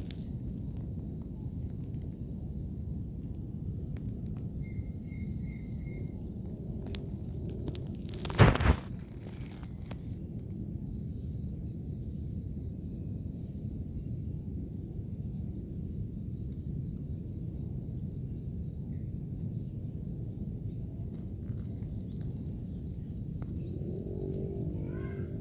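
Cricket chirping in fast pulsed trills a second or two long, repeated again and again over a steady high insect hum and a low rumble. A single loud thump about eight seconds in.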